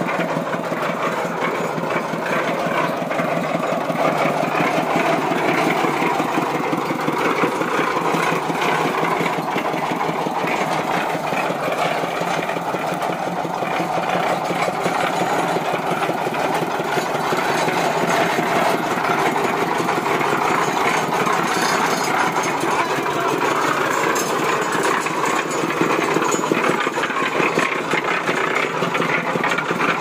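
Small engine of a homebuilt cement mixer running steadily, driving the drum.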